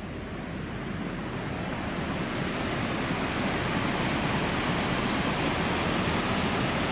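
Water gushing out of a dam's outlet tunnel into a concrete spillway channel: a steady rush of noise that grows louder over the first few seconds, then holds.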